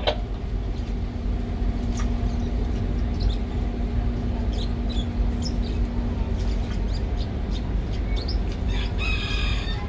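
Steady low rumble with short, high-pitched chirps and squeaks scattered through it, a brief cluster of them near the end. A steady hum sounds under it for a few seconds in the first half.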